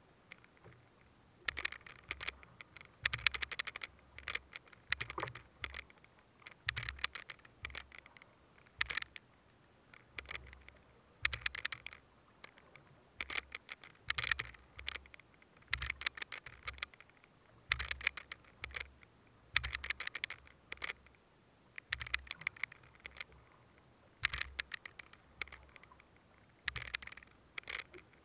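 Water slapping and splashing against the hull of a small boat drifting on a choppy sea, in irregular bursts every second or two, many with a low thump.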